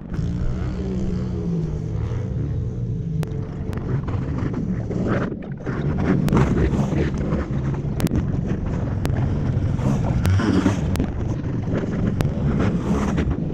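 Wind buffeting the microphone over distant dirt bike engines revving and easing off on a motocross track. The wind gets stronger about halfway through.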